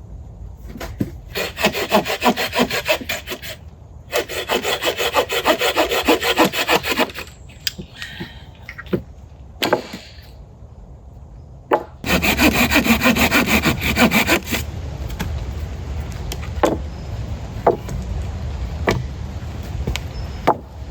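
Hand saw cutting through wood in three bouts of rapid back-and-forth strokes, with scattered knocks and clatters of wood between them.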